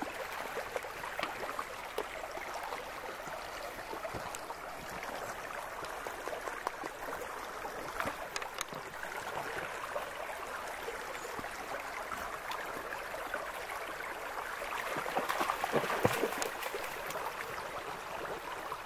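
Shallow rocky stream trickling and babbling over stones, with a few scattered clicks. Near the end it grows louder for a couple of seconds, with some sharp knocks.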